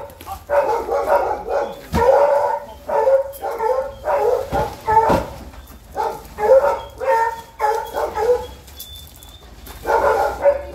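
A dog barking over and over in quick runs, with a couple of dull knocks in between.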